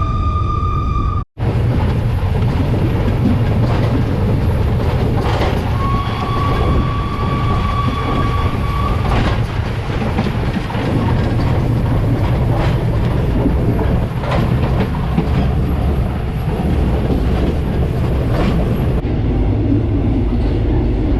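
Steam-hauled train running, a steady heavy rumble with the wheels clicking over rail joints. A steady high tone sounds for a few seconds in the middle, and the sound drops out for an instant about a second in.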